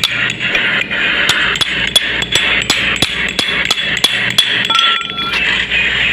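A hammer strikes a steel spike that is driven between the strands of a steel wire rope to open them for tucking while splicing an eye. The metallic blows come two or three a second and stop about four and a half seconds in.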